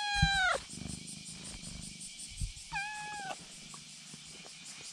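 Black kitten meowing close by: one meow ends with a sharp downward slide just after the start, and a second, shorter meow comes about three seconds in. A few low thumps fall between them.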